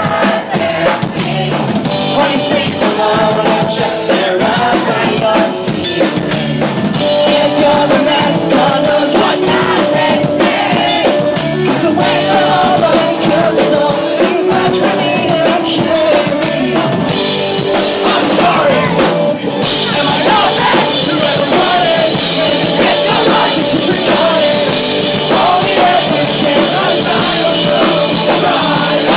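Pop-punk band playing live, with drums, electric guitars and a sung vocal line. About twenty seconds in, the sound fills out and turns brighter in the highs.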